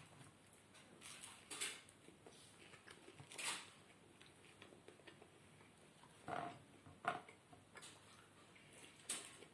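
Faint eating sounds: a few scattered clicks and taps of cutlery against a plate, with quiet stretches between.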